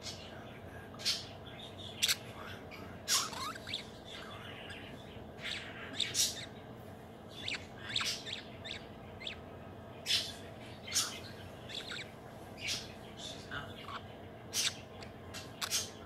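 Young budgerigar (baby budgie) making short, irregularly spaced chirps and soft chattering calls while snuggled up.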